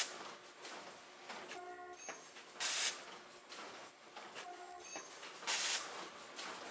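Automatic folding mask machine running with a steady mechanical clatter. A short burst of hiss comes about every three seconds, and a brief pitched tone sounds between the bursts.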